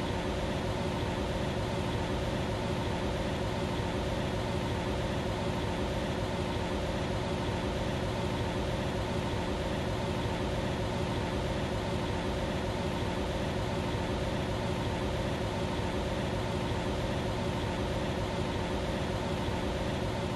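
Bryant Legacy Line furnace running: a steady, even rush of air with a steady hum underneath.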